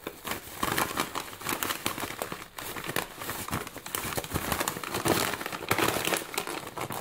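Mailing bag crinkling and rustling as a hand rummages inside it and shifts it about, in a steady run of irregular crackles.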